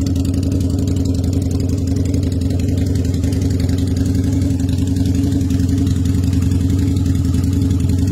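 Harley-Davidson V-Rod's liquid-cooled V-twin idling steadily at an even, low pitch.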